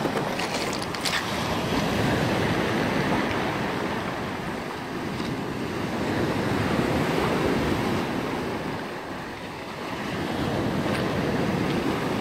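Surf breaking on a pebble beach with wind buffeting the microphone, swelling and easing in waves.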